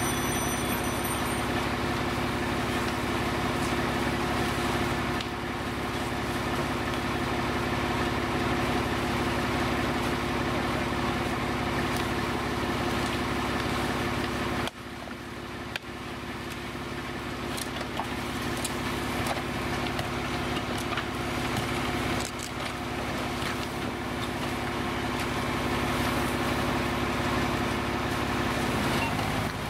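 Fire engine's diesel engine running steadily at high idle to drive its pump, a constant hum with a few short knocks and clicks over it; the level dips briefly about halfway.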